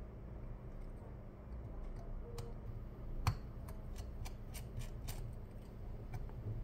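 Faint small ticks and clicks of a precision screwdriver turning out the bottom pentalobe screws of an iPhone 12 Pro Max, with the phone being handled; one sharper click about three seconds in, over a faint steady hum.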